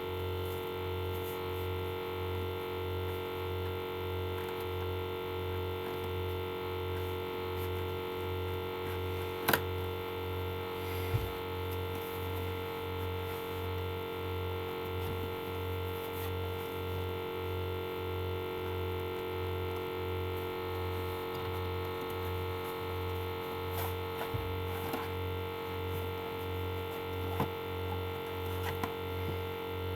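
Steady electrical mains hum, a low drone that pulses a little more than once a second, with a few light clicks of the box set being handled; the sharpest click comes about a third of the way in.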